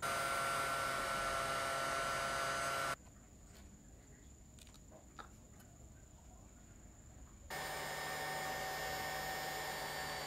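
Steady machine hum with a few fixed tones, like a small electric motor or fan running. It is on for about the first three seconds, cuts off abruptly, and comes back a little past halfway. Faint small clicks sound in the quieter gap between.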